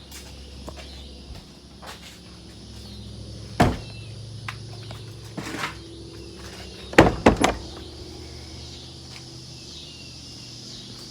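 A door being handled: a knock, then a clatter, then a quick cluster of three or four bangs about seven seconds in, which are the loudest sounds. A steady high-pitched drone runs underneath.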